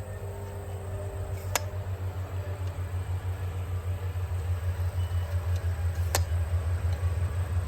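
A steady low rumble runs throughout, with two sharp clicks, one about a second and a half in and one about six seconds in, from the aluminium tripod's leg locks being worked as it is taken down and set up.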